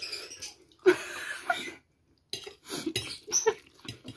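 Mouth sounds of people eating spicy instant noodles: slurping and breathy puffs in short, irregular bursts, with a brief pause about two seconds in.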